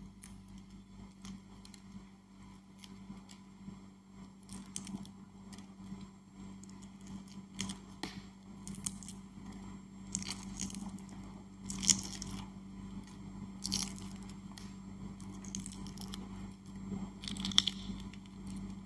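Eggshell being cracked and peeled off an egg on a table: irregular small crackles and tearing sounds, with a couple of sharper snaps, one about twelve seconds in and one near the end.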